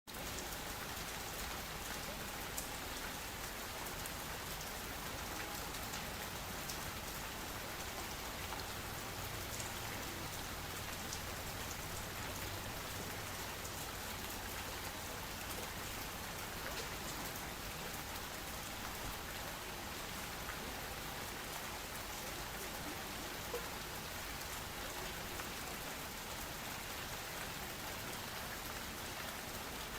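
Steady rain: an even hiss with faint pattering drops, starting abruptly at the very beginning and holding steady throughout.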